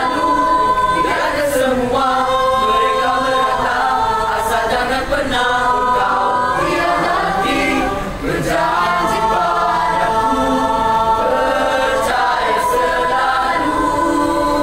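Singing over music, the voices holding long sustained notes that change pitch every second or two.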